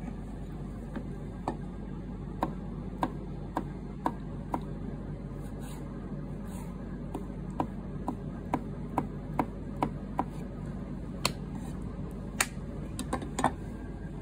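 Sushi knife tapping on a cutting board as red clam (ark shell) meat is sliced and scored: sharp taps about twice a second in two runs, then a few scattered taps near the end, over a steady low hum.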